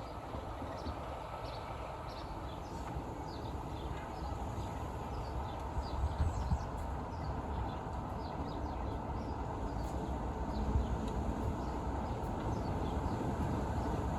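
Birds chirping in many short, quick calls over the steady low rumble of a Class 33 diesel locomotive, which grows slightly louder toward the end.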